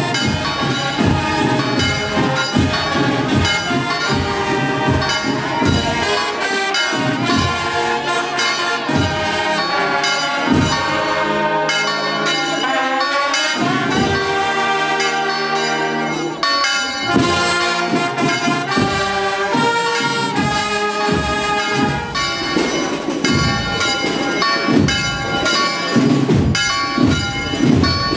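Brass band playing processional music, with church bells ringing over it.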